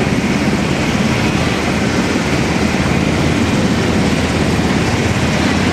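Military helicopters (UH-60 Black Hawk and Mi-17) running on the ground, their turbine engines and rotors making a steady, even noise with a fast low pulsing.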